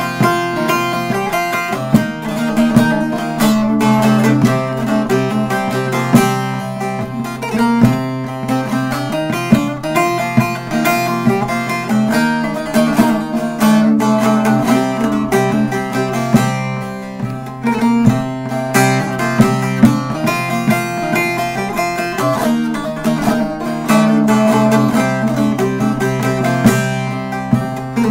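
Short-neck bağlama with a staved mulberry bowl and spruce top, played solo: a Turkish folk tune in quick plucked notes over a steady low note.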